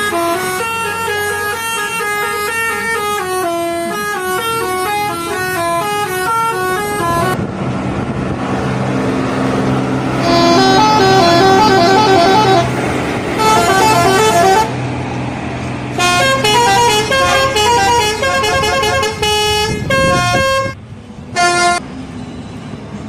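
Indonesian bus telolet horns playing quick multi-note tunes, one clip after another. First comes a stepping melody of short notes, then loud bursts of several notes sounding together, and near the end one brief blast. Engine noise runs underneath.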